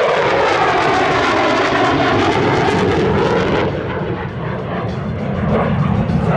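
Sukhoi Su-27 fighter's twin AL-31F turbofan engines, loud jet noise as the aircraft passes in a display flight. About four seconds in the sound loses its hiss and dips slightly, then a deeper rumble builds.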